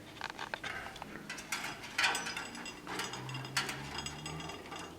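A parrot's beak working a sunflower seed: an irregular run of sharp clicks and cracks, the loudest about two seconds in.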